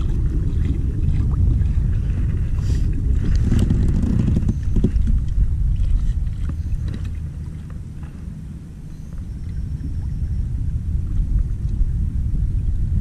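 Wind buffeting the microphone in a steady low rumble, easing off briefly a little past the middle. Several light clicks and knocks come from the kayak and fishing gear.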